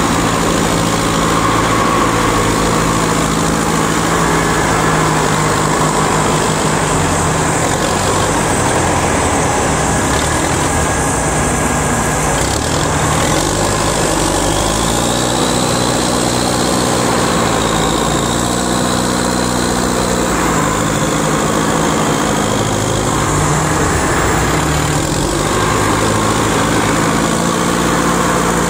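Caterpillar 944A wheel loader's diesel engine running as the machine works through a dirt pile. Its engine speed rises and falls several times in the middle, and a faint high whine rises and holds for a few seconds about halfway through.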